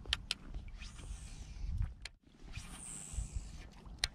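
Baitcasting reel cranked in during a lure retrieve: two spells of about a second each of soft whirring hiss, the second with a thin high whine, set between a few sharp clicks and low bumps from handling the rod.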